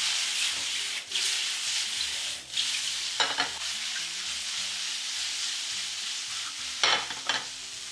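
Sliced cremini mushrooms sizzling in hot oil in a stainless steel frying pan as the pan is tossed over a gas flame, with two louder bursts, one about three seconds in and one near the end.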